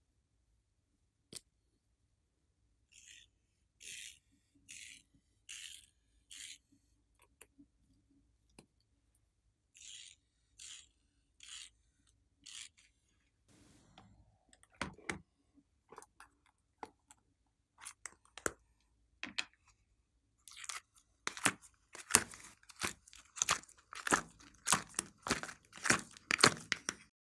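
Glitter glue squeezed from a bottle in short hissing spurts, a series of them, as lines are drawn across slime. Then thick slime is pulled and squeezed out of a soft plastic mould with loud, sticky crackling and popping.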